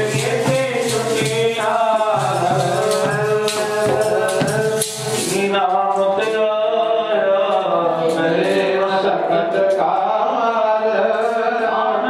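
Devotional kirtan-style music: harmonium with singing, accompanied by hand drums and rattling percussion. The drumming and rattle stop about halfway through, leaving the harmonium and voices.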